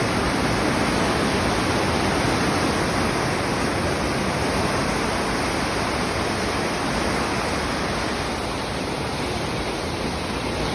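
Loud, steady rush of water pouring through open canal lock gates, easing slightly near the end.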